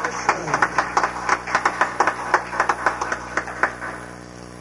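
Small audience clapping, scattered hand claps that die away about four seconds in.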